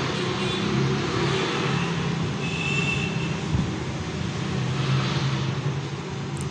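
A steady low mechanical drone over background hiss, with a brief high tone about two and a half seconds in.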